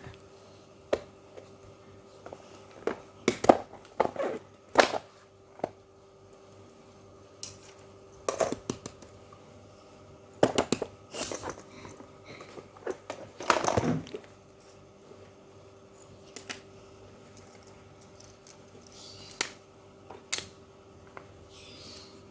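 Small fidget toys being handled: irregular clicks and taps, with a longer rustling scrape about halfway through, over a faint steady hum.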